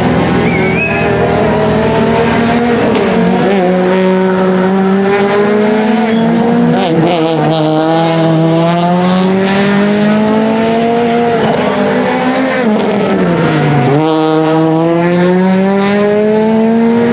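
Rally car engine accelerating hard through the gears, its pitch climbing and dropping sharply at two upshifts. About two-thirds through it falls away as the car brakes and downshifts, then pulls up through the revs again in the last few seconds. A brief tyre squeal about a second in.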